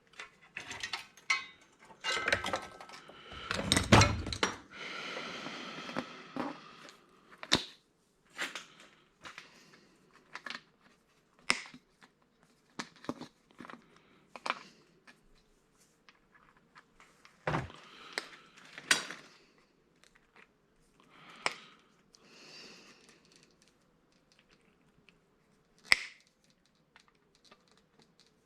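Metal parts and circuit boards being handled and pulled apart during a teardown: scattered clanks, thunks and clicks. The loudest is a dense run of knocks about four seconds in, followed by about two seconds of scraping, then sparser knocks.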